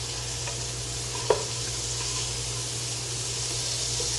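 Cooking oil heating in a pressure cooker, sizzling steadily, with a sharp click about a second in.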